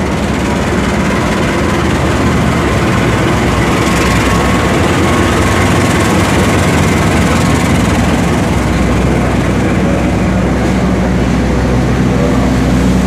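Diesel locomotive engine running close by: a loud, steady drone with a low hum underneath.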